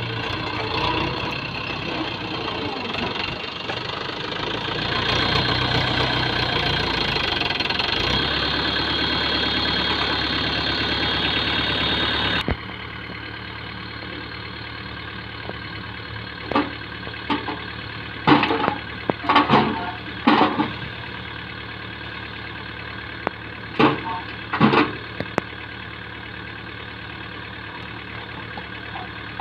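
Tractor's diesel engine running hard as its hydraulic tipper raises the loaded trailer bed, rising in level about five seconds in and holding, then dropping suddenly to a lower steady idle. Over the idle, a series of short sharp clunks as soil falls from the tipped trailer and the tailgate swings.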